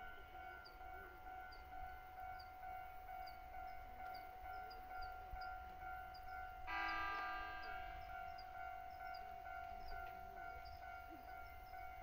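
Level-crossing warning bell ringing in a steady repeating pattern. About seven seconds in comes a short train horn blast of about a second, the loudest sound here.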